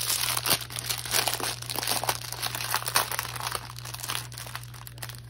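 Clear plastic packaging of diamond painting drills crinkling and rustling as it is handled, in a dense run of irregular crackles.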